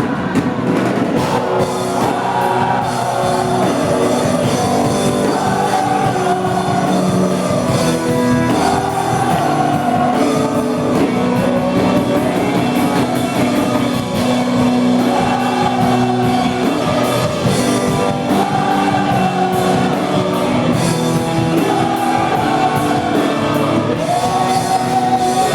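Contemporary worship music played live: a singer's voice leads over a rock band with guitar and drums.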